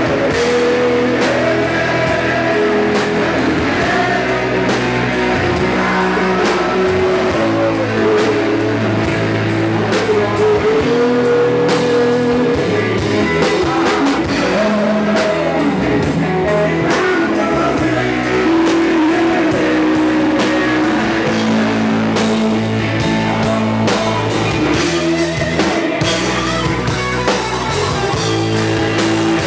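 Rock music at full volume: singing over electric guitars and a drum kit, with a steady drum beat and a sung melody that rises and falls.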